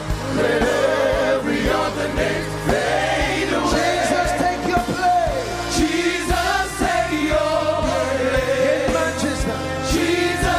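Gospel worship music: several voices singing together over a band with a steady beat.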